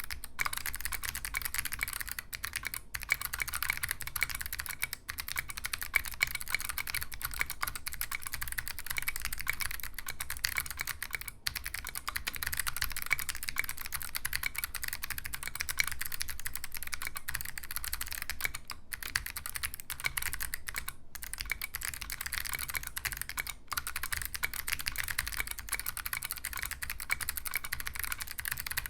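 Handwired 60% mechanical keyboard being typed on quickly and continuously: a dense run of key clicks with a few brief pauses.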